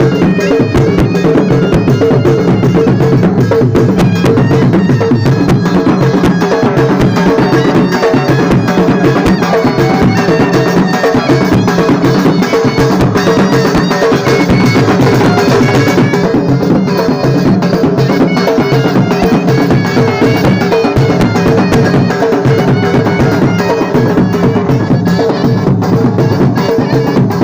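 Surna, the Baloch double-reed shawm, playing a continuous melody over loud, steady drumming in Lewa band music.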